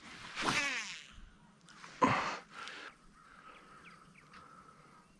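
A cast with a baitcasting reel: the spool whirs as line pays out, falling in pitch as it slows. A sharp knock follows about two seconds in, then a fainter, steady reel whir as the grub is retrieved.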